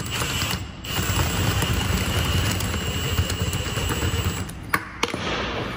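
Cordless drill running with its bit pressed sideways in a hole in a metal roof-rack crossbar, grinding the round hole into an oval; a steady whirr with a high whine, briefly easing about a second in. The drill stops near the end, followed by a couple of sharp clicks.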